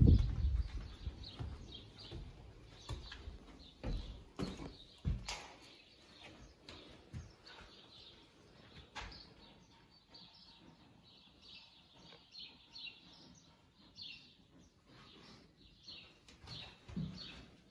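Footsteps on wooden floorboards, a few sharp knocks in the first few seconds, with small birds chirping faintly through the rest.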